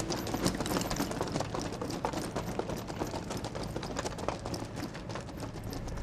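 Many quick, irregular footsteps clattering together, as of a group of people moving fast.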